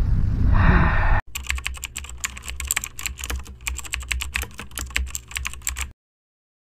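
Typing sound effect: rapid, irregular key clicks over a faint low hum, starting about a second in and cutting off suddenly near the end. Before it, a second of low outdoor rumble that stops abruptly.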